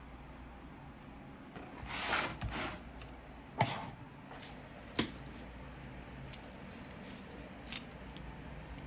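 Rustling, then two sharp clicks about a second and a half apart and a fainter tick near the end, over a steady hiss: small hard parts being handled.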